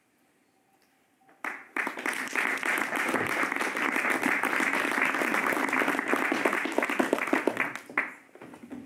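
Audience applauding, starting about a second and a half in and dying away after about six seconds of steady clapping.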